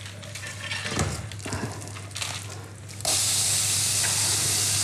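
Sliced onions dropped into hot butter in a stainless steel frying pan, breaking into a steady sizzle about three seconds in, as the onions start to sweat. Before that, a few light knocks and handling noises in the pan.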